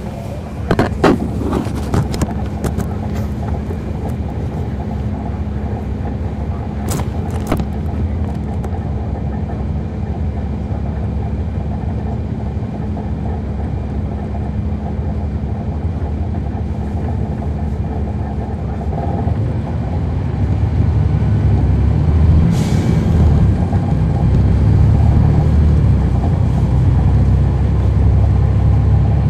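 Cummins ISL9 diesel straight-six of a NABI 416.15 transit bus, heard from the back seat inside the bus, running steadily and then growing louder about two-thirds of the way in as the bus pulls harder. A few sharp clicks and rattles sound in the first seconds and again about a quarter of the way in, and a short hiss of air comes a little past the middle.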